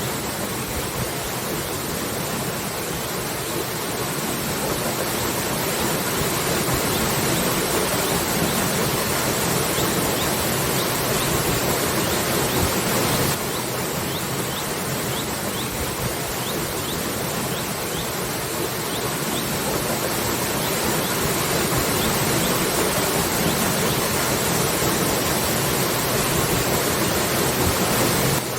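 Waterfall: a steady rush of falling water. About 13 seconds in it drops suddenly to a slightly lower level, then slowly builds again.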